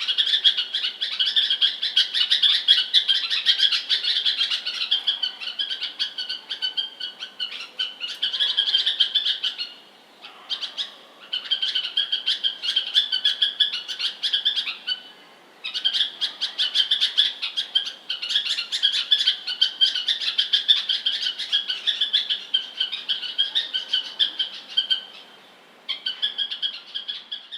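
Bulbul chirping in quick, dense runs of notes, broken by short pauses about ten, fifteen and twenty-six seconds in.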